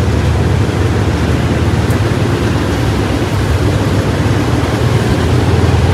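Steady rumble and rushing noise of a moving passenger train, heard from inside the carriage.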